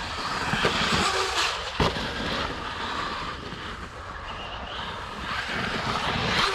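Brushless electric RC monster truck driving hard off-road, its motor and tyres hissing and swelling twice as it accelerates, with a sharp knock about two seconds in.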